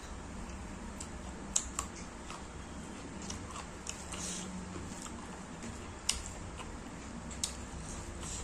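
Close-up eating sounds: chewing mouthfuls of pork curry and rice while fingers mix rice and curry on the plate, with a few short sharp clicks, the loudest about a second and a half in and about six seconds in. A steady low hum runs underneath.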